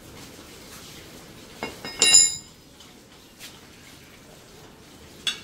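A steel spanner clinks against metal or the floor about two seconds in and rings briefly, with a lighter metallic clink near the end.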